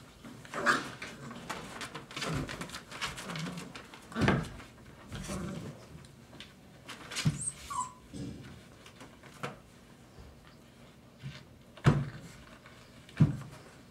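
Five-week-old Dogo Argentino puppies scuffling and playing, with a few short squeaky yips and whimpers among the rustling. Two sharp knocks near the end are the loudest sounds.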